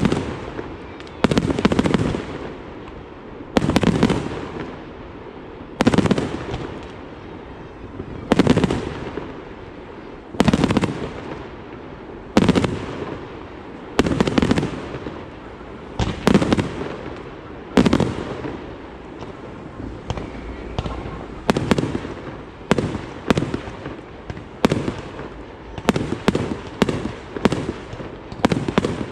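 Fireworks display: loud aerial bursts, each bang followed by a rolling echo. They come about one every two seconds, then speed up to roughly one a second in the last ten seconds or so.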